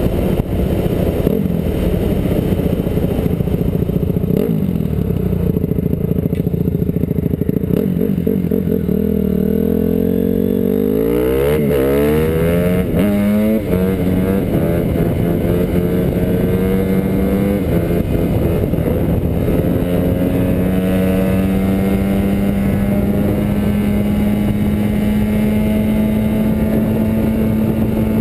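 Honda CRF250R dirt bike's single-cylinder four-stroke engine running under load on the road. About ten seconds in the revs sweep up and down for a few seconds, then the engine note holds steady, creeping slowly higher.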